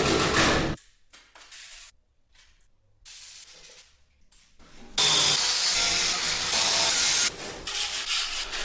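Rust being sanded off the metal garage door: a loud, steady, hissing scrape that cuts off abruptly about a second in, gives way to a few short bursts, and starts again about five seconds in, growing uneven near the end.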